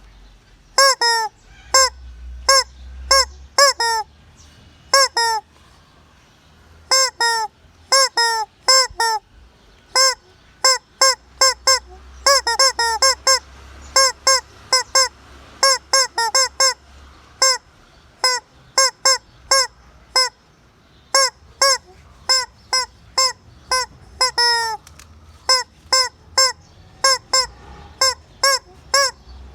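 Hen calling over and over: loud, short honking calls in quick runs of three to five, the runs a second or two apart.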